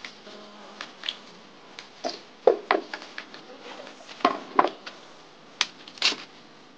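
A large kitchen knife cutting into and peeling cassava roots: irregular sharp cuts and cracks as the blade bites the root and the peel is split and pulled away, the loudest strokes about two and a half and four and a half seconds in.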